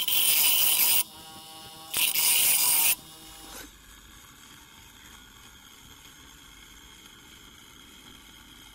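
Bench grinder's wheel grinding rust off a steel chisel: two loud, harsh grinding passes of about a second each, with the grinder motor humming between them. A little over three seconds in, the grinding stops and only a low steady hum with a faint high whine remains.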